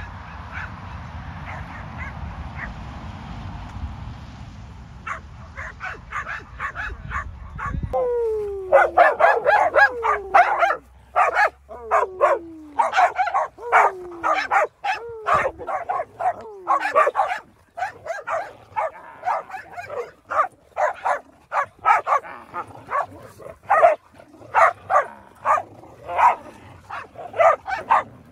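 For the first eight seconds a low rumbling noise with faint dog calls; then, about eight seconds in, a pack of excited dogs starts yipping, barking and whining close by, with several short falling whines mixed among rapid yips.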